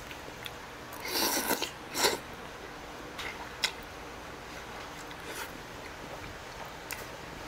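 A person slurping thick udon noodles: two loud slurps about a second and two seconds in, then chewing with a few short, faint clicks.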